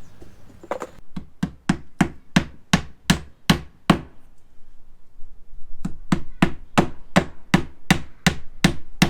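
Claw hammer driving roofing nails through the flange holes of a vinyl replacement window: two quick runs of about a dozen blows each, about four a second, with a pause of about two seconds between them.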